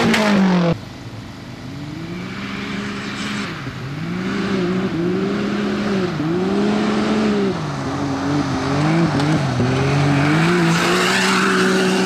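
Engine of a side-by-side off-road buggy on a dirt stage, revving up and down again and again, about once a second, then holding steady revs near the end, with a rising hiss of tyres on dirt. It opens with a different loud engine rev that cuts off abruptly under a second in.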